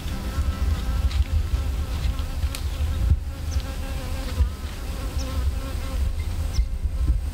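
Insect buzzing steadily close by, over a low rumble, with short high chirps about once a second.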